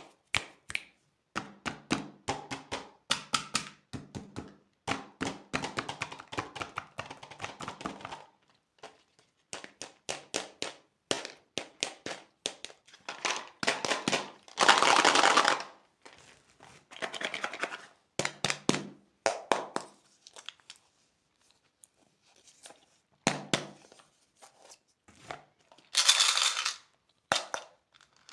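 Plastic candy packaging crinkling and being torn open, in short bouts of rapid clicks and rustles, with two longer ripping tears, one near the middle and one near the end.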